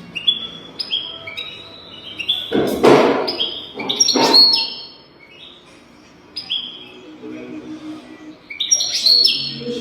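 European goldfinch singing: a fast run of short, downward-sliding chirps and twitters. Two loud noisy bursts break in about a third of the way through, and another near the end.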